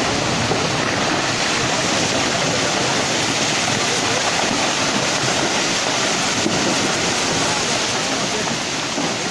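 Fast-flowing floodwater rushing in a loud, steady, unbroken stream.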